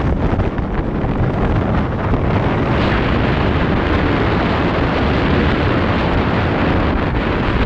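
Loud, steady wind noise on a GoPro Hero 7 Black's microphone while cycling, without pitch or rhythm.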